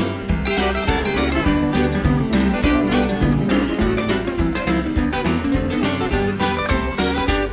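Western swing band playing an instrumental rag live, mandolins and electric guitar picking over bass and drums with a steady beat.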